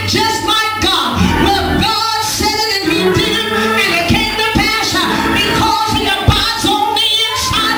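Singing with music.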